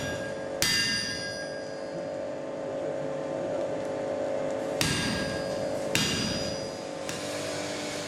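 Hammer blows on hot iron at a blacksmith's anvil: three sharp strikes, each leaving a long metallic ring that dies away slowly.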